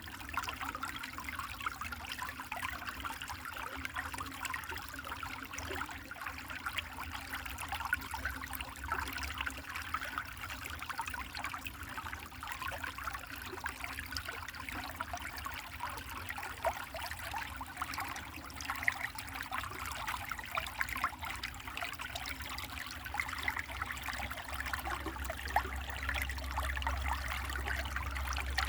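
A small mountain stream babbling steadily. A low rumble underneath grows stronger near the end.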